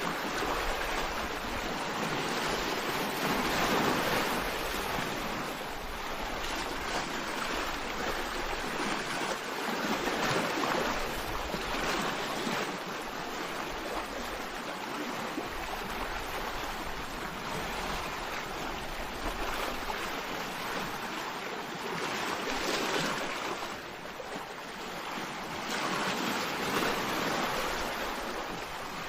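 Sea waves breaking and washing on the shore, a continuous surf that swells and eases every few seconds.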